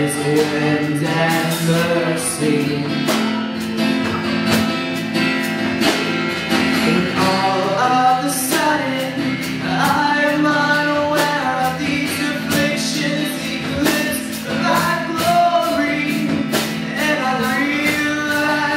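Live band playing a song: voices singing over keyboard and a drum kit, with a steady drum beat.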